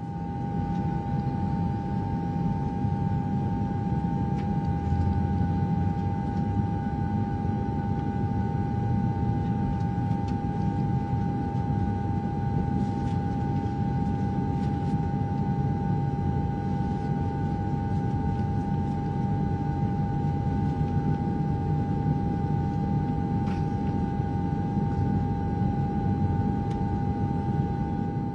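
Steady low rumble of a moving vehicle heard from inside, with a constant high whine over it.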